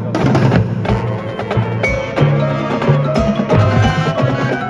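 High school marching band playing its field show, with drums and struck percussion prominent over held low notes.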